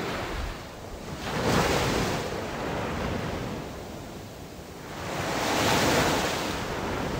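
Sea waves washing onto a sandy beach, two slow swells of surf that build and fade, one about a second and a half in and another about five to six seconds in.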